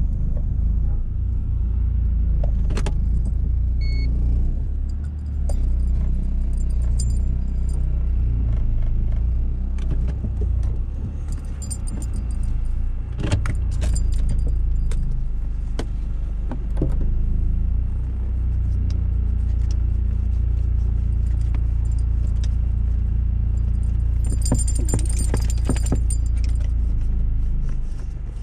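Steady low rumble inside a moving car's cabin, with a dog's metal chain leash jingling in two spells, a little before the middle and again near the end.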